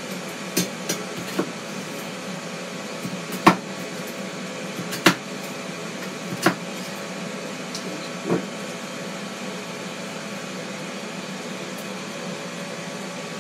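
A knife cutting through a potato in a hasselback potato cutter, the blade knocking against the metal guide loops and the wooden base block with about seven sharp clicks over the first eight seconds, the loudest about three and a half seconds in. A steady appliance hum runs underneath.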